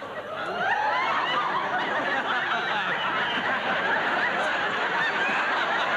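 Studio audience laughing, the laughter swelling about half a second in and carrying on steadily.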